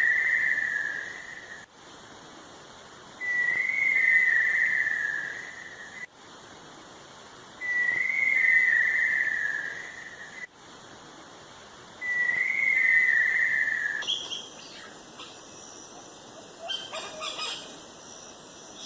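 A long, clear whistled note, wavering and sliding a little downward, repeated four times about every four and a half seconds. After the fourth come short, scattered higher chirps.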